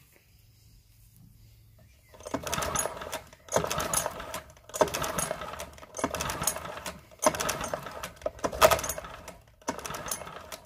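Recoil starter of a Parsun 4 four-stroke outboard pulled seven times in quick succession, starting about two seconds in. Each pull turns the engine over without firing, because the spark plug has been replaced by a compression gauge, and the pulls build up a dry compression reading.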